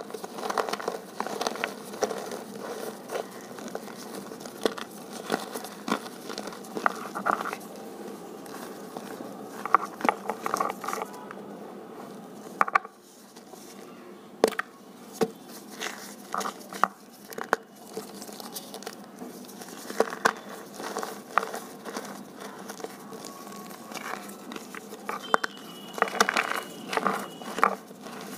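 Hands crushing and crumbling crunchy reforms dusted with cornstarch, giving a dense run of crisp crunches and crackles, with louder squeezes in clusters.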